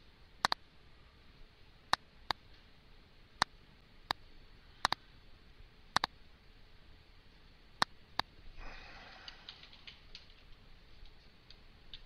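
Computer mouse clicks, single and a second or two apart, then about eight and a half seconds in a short run of rapid keyboard typing.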